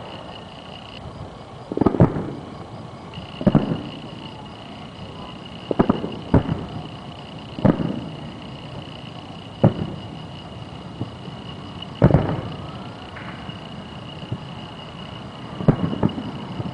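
Aerial firework shells bursting about three miles away: a string of about eight or nine deep booms, irregularly spaced a second or two apart, some in quick pairs, each with a short echoing tail.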